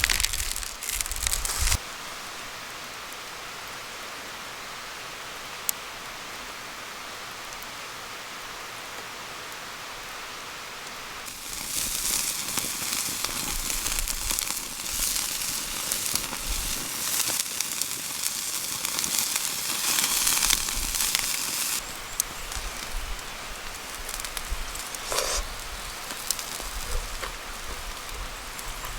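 Open wood campfire crackling and hissing, with a burst of many sharp pops and crackles from about 11 s to 22 s that then eases to a lighter crackle.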